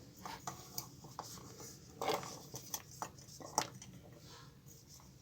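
Faint, scattered light taps and clicks as pieces of chopped ginger are put into a mixer-grinder jar, the clearest about two seconds in and again a little later.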